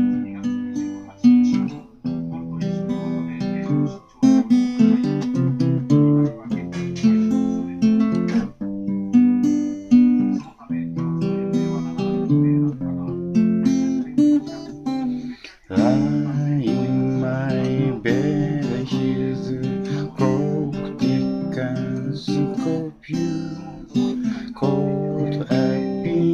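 Acoustic guitar played solo, chords picked and strummed in a steady instrumental passage, with a brief break about two-thirds of the way through.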